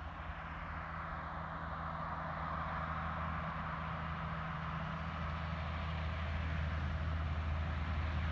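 A truck approaching along the highway: a steady low engine drone with tyre noise, growing steadily louder as it nears.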